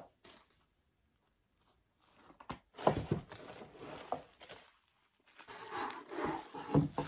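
Handling noise from a pair of rubber-soled sneakers being lifted out of a tissue-lined shoebox: rustling with sharp clicks and soft knocks. It comes in two short bouts after a quiet start.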